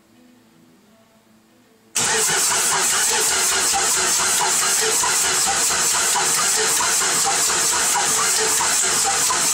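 1995 Ford 7.3 Powerstroke turbo-diesel V8 being cranked by its starter, with an even rhythmic churning and no sign of it catching, in a no-start condition. It starts suddenly about two seconds in.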